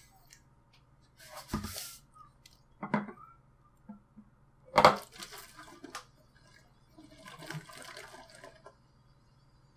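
Soda poured from a glass bottle into a plastic jug. The bottle knocks and clinks against the jug's neck, loudest about five seconds in, and liquid pours near the end.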